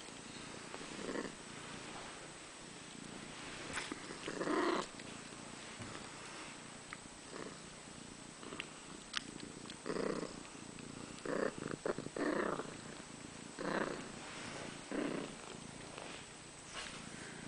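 Domestic cat purring close to the microphone while kittens nurse, heard as a rhythmic series of breathy pulses, with a few faint clicks.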